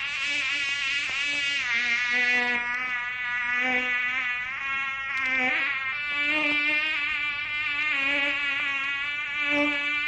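Mosquito whining in flight: one continuous buzz whose pitch wavers up and down, gently swelling and fading in loudness.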